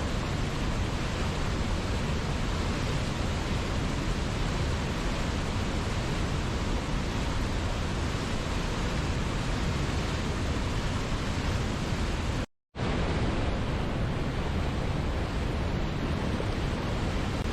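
Waterfall with a steady, even rush of falling water. It cuts out to silence for a split second about twelve seconds in, then resumes unchanged.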